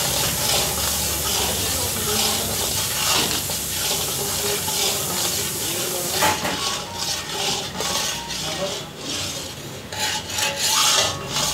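Long metal spatula stirring and scraping gram flour mixture around a large iron kadai. There is a sharp clank about six seconds in, after which the scraping turns more broken, with loud rasping strokes near the end.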